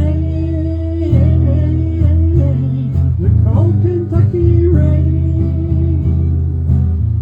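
Live country song: a singer holding long notes over strummed acoustic guitar with a steady low accompaniment.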